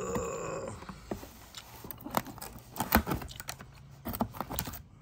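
Scissors snipping the plastic ties that hold a toy in its packaging, with sharp clicks and knocks of hard plastic spread through, the loudest about three seconds in. A short pitched sound opens it.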